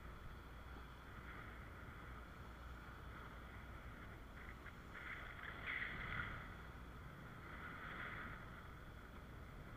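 Faint, distant drone of a speedboat's engine towing a parasail, over a low wind rumble on the microphone. The drone swells briefly about five to six seconds in and again near eight seconds.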